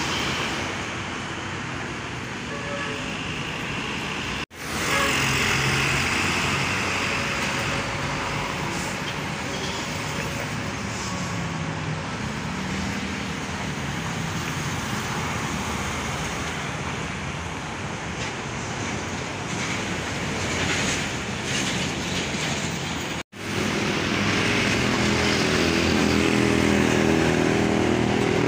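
Busy city road traffic: trucks, cars and motorcycles passing with steady engine and tyre noise. The sound breaks off for an instant twice, and after the second break a louder engine drone with a steady pitch takes over.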